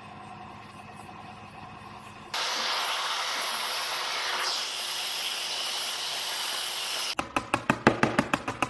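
A low hum, then a sudden loud steady hiss for about five seconds, then rapid sharp metallic taps, about seven a second, typical of a body hammer tapping on the aluminum hood panel around a stud dent puller.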